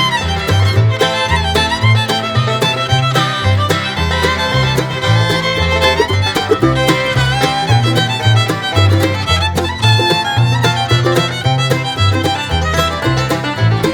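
Upbeat background music led by a fiddle over a walking bass line and a steady beat, in a bluegrass or country style.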